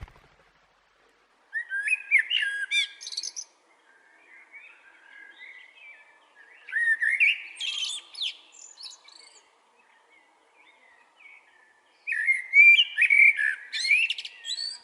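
A songbird singing three quick, varied warbling phrases a few seconds apart, with quieter twittering between them.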